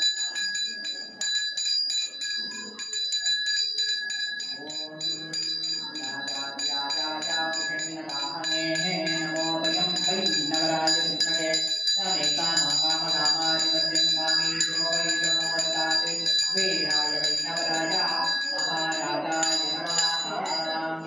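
A puja bell rung rapidly and without pause for the arati, its ringing steady and bright. From about four seconds in, a held low drone joins it and breaks off briefly twice.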